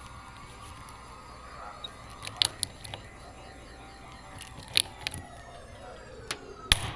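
Craftsman hand rivet gun setting blind rivets in an aircraft's windshield spray bar: sharp metal clicks, some in quick pairs, as the handles are squeezed, and the loudest snap near the end.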